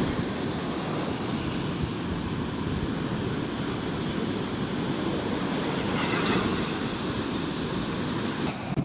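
Rough sea surf washing and breaking steadily onto the beach, with wind rumbling on the microphone. A brief brighter hiss of breaking water comes about six seconds in.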